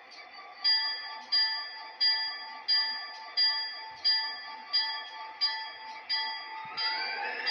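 Sound-system bell of an M.T.H. DDA40X O-gauge model diesel locomotive with PS3 sound, ringing steadily about one and a half strikes a second. It is faint at first and louder from about half a second in. Near the end a second sound rising in pitch joins it.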